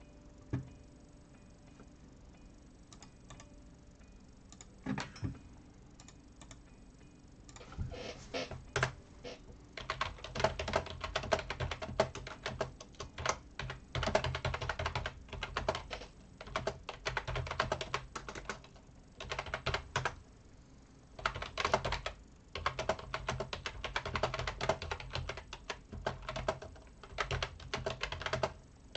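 Typing on a computer keyboard in quick runs of keystrokes: a few separate taps at first, then two long runs of fast typing with a short pause between them.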